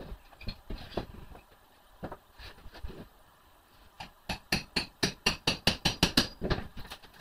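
Hammer work pulling nails from a wooden shipping crate: scattered light knocks, then a quick run of about a dozen sharp blows, some five a second, just past the middle.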